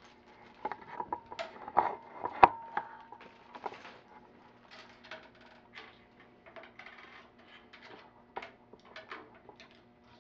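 Scattered light clicks and taps of small objects being handled, with one sharper knock about two and a half seconds in.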